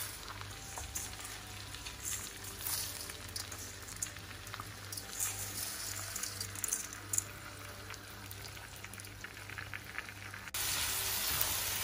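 Raw rice grains pouring into hot oil in a wok, pattering and crackling as they hit the frying oil. Near the end the sound jumps abruptly to a louder, steady sizzle.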